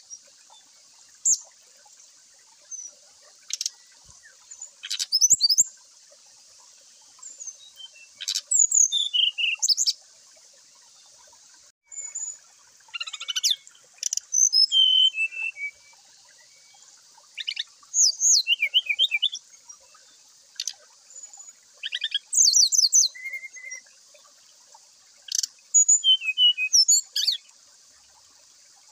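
Brown-chested jungle flycatcher (sikatan rimba dada coklat) singing short, high, quick chirping and warbling phrases every few seconds, over a steady high hiss.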